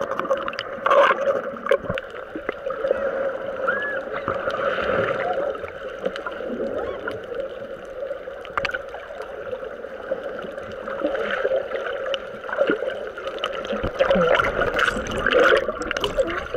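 Muffled underwater sound heard through a submerged camera: water sloshing and bubbling, with a steady hum underneath and a few faint clicks.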